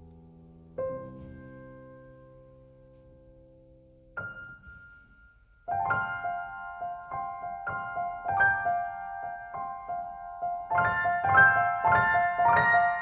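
Piano music: a held chord dying away, a single note struck about a second in and another about four seconds in, then a flowing run of notes from about six seconds that grows louder.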